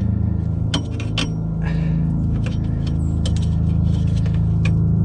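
Scattered light metallic clicks and scrapes as a bolt is turned by hand into a jacking rail under a car, over a steady low hum.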